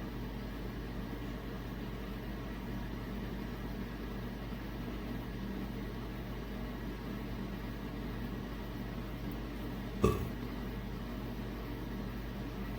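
3D printer running with a steady hum of fans and motors. One sharp click about ten seconds in.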